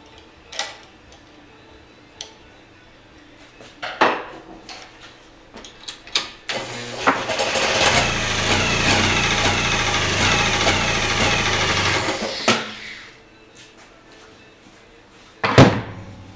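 A steady mechanical whirr runs for about six seconds, with scattered clicks and knocks before it and one loud knock near the end.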